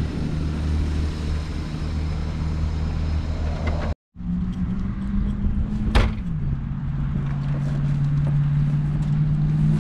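2000 Toyota Corolla's engine running steadily while the car is driven. The sound cuts out for a moment about four seconds in; after a click about six seconds in, the engine note steps down to a lower steady pitch.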